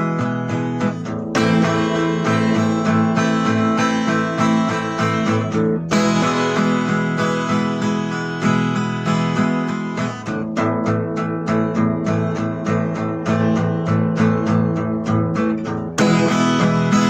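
Guitar playing an instrumental tune, picked notes and chords struck in a steady rhythm. The sound turns brighter at about one and a half seconds in, again around six seconds, and near the end.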